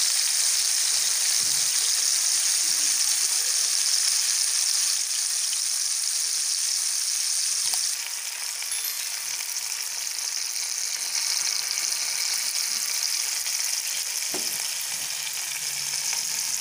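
Marinated rohu fish pieces shallow-frying in a little oil on a tawa: a steady sizzle, a little quieter from about eight seconds in.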